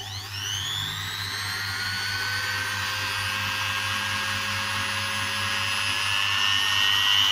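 Bitec SGM 906 V-OS electric die grinder running free at its lowest speed setting, switched on just before. Its high motor whine climbs in pitch for about half a second as it spins up, then holds steady, creeping a little higher near the end.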